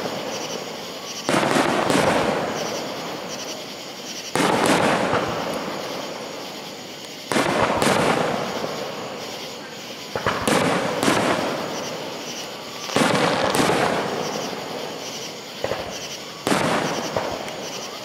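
Aerial firework shells bursting one after another. Each is a sharp bang that trails off over a couple of seconds. The bangs come every one to three seconds, sometimes in quick pairs.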